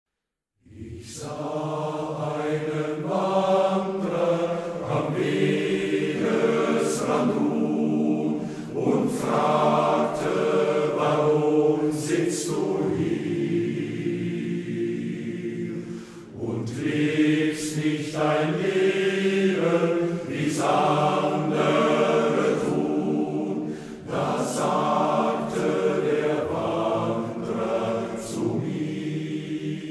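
Male-voice choir singing a German song in harmony. It begins about a second in, with a brief break between phrases about halfway through.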